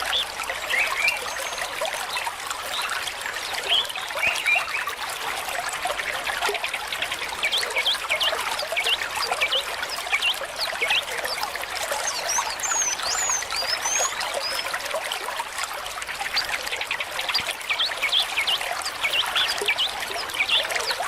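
Water trickling steadily, with birds chirping over it: many short, high chirps and whistled notes, busiest about two-thirds of the way through.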